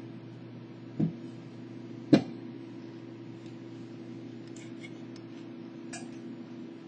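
Handling noise as a PC motherboard is slid out of its metal housing: a soft knock about a second in, a sharper metallic click about two seconds in, then a few faint clicks, over a steady low hum.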